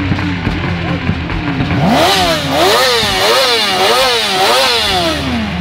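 Yamaha sport motorcycle engine revved with the throttle blipped. The blips are light for the first two seconds. Then the pitch climbs steeply and bounces high at about two blips a second, and near the end it drops back toward idle.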